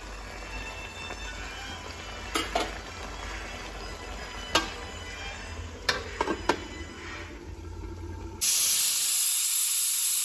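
Meat sizzling as it fries in a steel kadai, with a few sharp metal clinks of the spatula and the lid going on. About eight seconds in, a much louder steady hiss takes over: steam escaping from a pressure cooker's weight valve once the rice is cooked.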